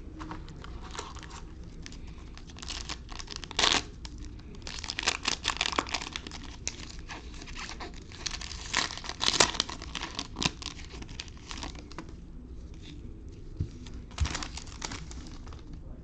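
A trading-card pack wrapper crinkling and tearing as it is opened by hand, in uneven crackly bursts.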